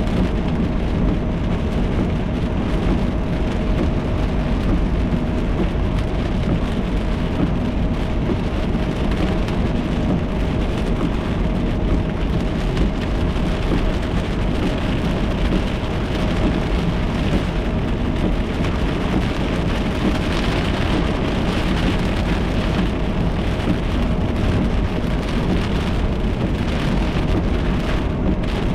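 Heavy rain falling steadily on a car, heard from inside the cabin, with a faint steady hum underneath.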